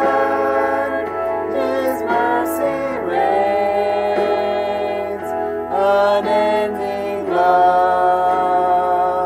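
A man and a woman singing a worship chorus together in unison, in slow phrases with long held notes.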